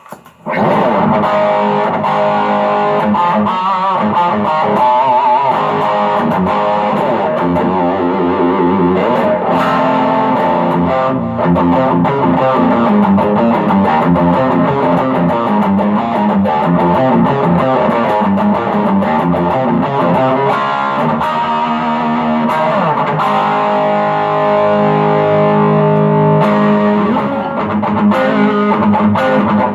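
M-Musi Virgo Fusion electric guitar played through a Quilter Superblock US amp with overdrive. It plays a continuous distorted passage of chords and single notes, with some bent and vibrato notes.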